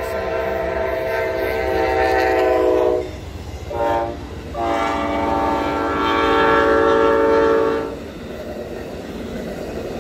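Amtrak passenger train's locomotive horn sounding the grade-crossing signal: a long blast, a short blast about four seconds in, then a long blast. When the horn stops the train is heard rushing past at speed.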